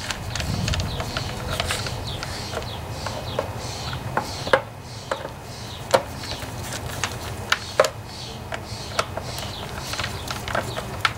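A screwdriver turning the screws that hold the plastic shroud of a Subaru EA190V engine: irregular light clicks and scraping from the driver in the screw heads and plastic, with a few sharper clicks about four and a half, six and eight seconds in.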